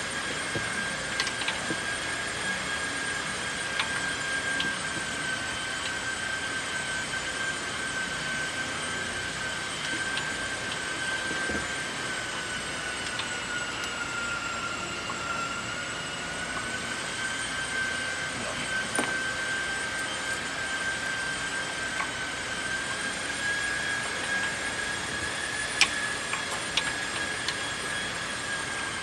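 A steady high-pitched whine, like a motor or machine running, that sags slightly in pitch about halfway through and then recovers. A few light clicks sound over it.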